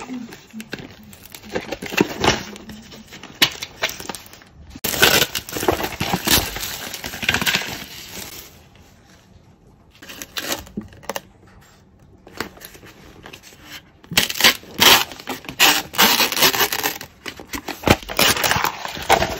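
Cup-noodle packaging being unwrapped and opened by hand: crinkling plastic film and lids peeled back, in irregular bursts with small clicks, pausing twice in the middle.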